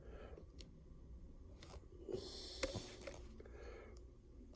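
A few faint, sharp clicks, spaced irregularly, from keys being pressed on the Dymo label maker's keyboard, with a soft breath-like rush about two seconds in.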